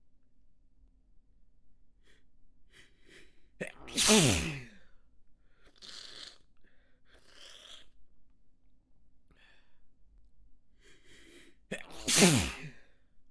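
A person sneezing twice, about eight seconds apart, each sneeze let out in full rather than stifled. Each one falls in pitch as it releases. Short sharp in-breaths build up to each sneeze, with breathing between them.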